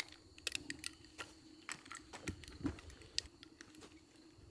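Faint, irregular small clicks and taps of gear being handled up close, over a faint steady hum.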